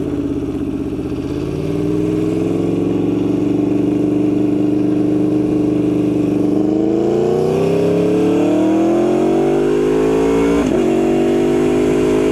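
Motorcycle engine pulling away: a steady note that climbs in pitch as the bike accelerates, then a brief break and drop in pitch at a gear change near the end. The race ECU holds the exhaust flapper open in gear, so the exhaust is loud.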